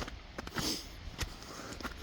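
Footsteps of a hiker walking a trail, a step about every 0.6 seconds, over a faint steady hiss.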